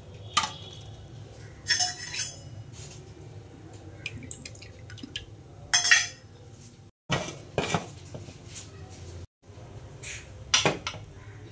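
Metal cookware clinking and knocking several times as a steel bowl of soaked dal is handled inside an aluminium pressure cooker. Near the end the cooker's lid is put on.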